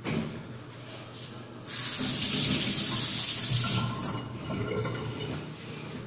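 Kitchen tap running into a sink for about two seconds, starting and stopping abruptly.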